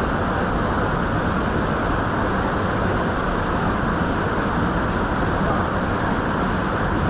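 Waterfall roar: a steady, unbroken rush of falling water, heavy in the low and middle range with little hiss above.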